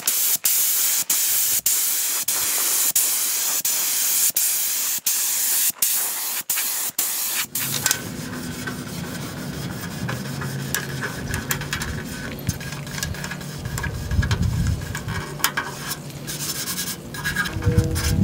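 Air-driven paint spray gun hissing in long spurts broken by short gaps as the trigger is let off and squeezed again. After about seven and a half seconds the hiss stops and quieter, lower sounds take over.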